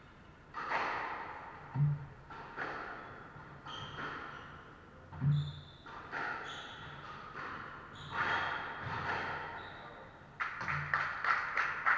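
Squash rally: the ball is struck and hits the walls, with two heavier thuds. Near the end a handful of spectators start clapping.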